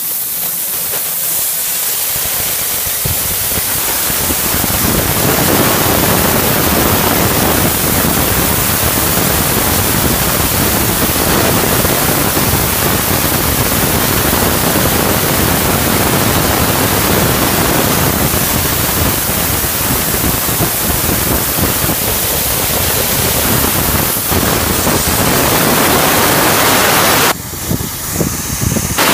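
150 W CO2 laser cutting machine running as it cuts MDF: a steady rushing hiss of its air and fan noise, which breaks up briefly near the end.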